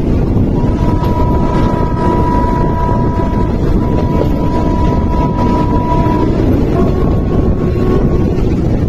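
Rumble of a moving passenger train with wind buffeting the microphone, heard from an open carriage window. A thin, steady high tone sounds for about five and a half seconds from about half a second in, then a slightly higher one briefly near the end.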